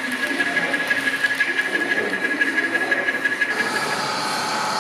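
HO scale model freight train rolling past close by, its wheels clicking rapidly and evenly over the track, about five clicks a second, with a steady high whine. About three and a half seconds in, this gives way to a steady hiss.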